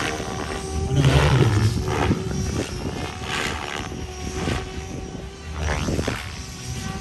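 Radio-controlled helicopter flying: a steady whine from its motor and rotors, with the blade noise swelling and fading as it manoeuvres.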